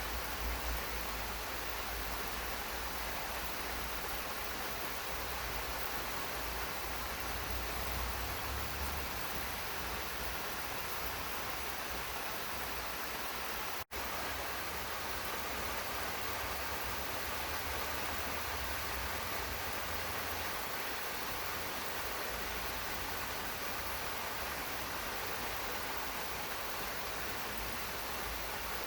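Steady rain falling in a garden, an even hiss with a low rumble beneath it, broken by a split-second dropout about halfway through.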